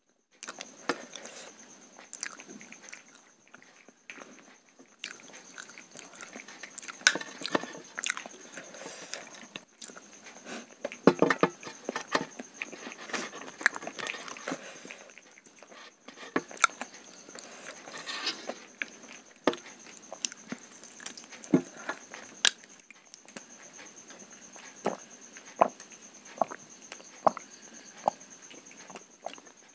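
Close-up eating sounds: chewing and lip smacks, with fingers picking and scraping food scraps off a metal plate, making scattered sharp clicks at irregular intervals. A faint steady high-pitched whine sits underneath.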